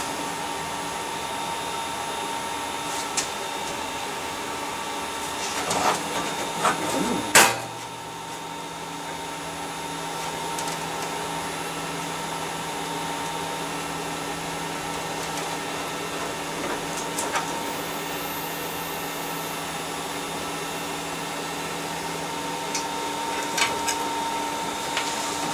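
Computer server and its power supply running, fans giving a steady whir with steady whining tones. There is a clatter of cable handling, then a sharp click about seven seconds in, after which a low steady hum joins: a hard drive spinning up once a cable is unplugged. This points to the main board or the cable as the fault rather than a dead drive.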